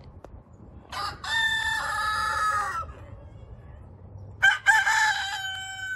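Roosters crowing twice: one crow about a second in and another starting near the end, each a short opening note followed by a long, held call.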